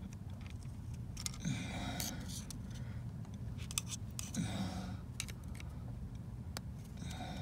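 Small clicks and scrapes of hand work on engine parts while a new oil pressure sensor screen filter is fitted, over a steady low hum. There are two short scraping bursts, about a second and a half in and again near the middle.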